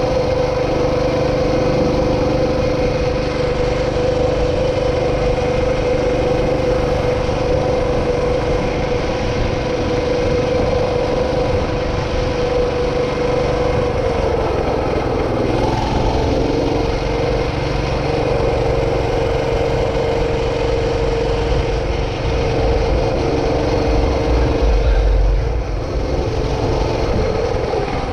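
A small vehicle's engine running at a steady speed while riding along, with wind rumble on the microphone. About halfway through its pitch dips and then settles a little lower, and the wind rumble swells briefly near the end.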